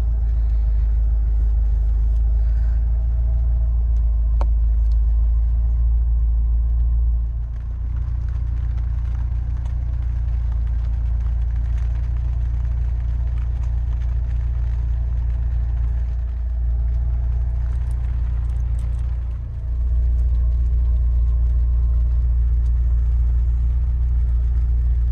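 Nissan 240SX's engine running with a steady low rumble, dipping briefly twice.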